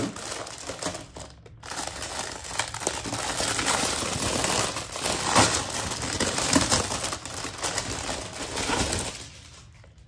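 Plastic bubble wrap and a plastic bag crinkling and crackling as they are unwrapped by hand, with a short lull about a second and a half in, fading near the end.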